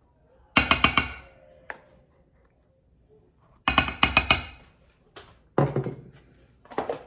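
A plastic measuring cup rapped against the rim of a ceramic mixing bowl to knock out cocoa powder: two quick flurries of four or five sharp, ringing taps, about three seconds apart. A few more knocks follow near the end as the cup is set down on the counter.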